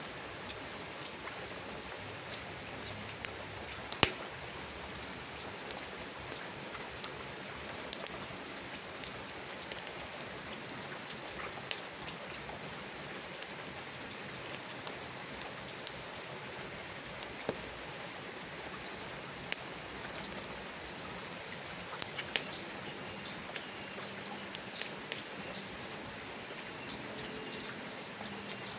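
Steady rain hiss with scattered sharp pops and crackles from a wood campfire burning in the rain; the loudest pop comes about four seconds in.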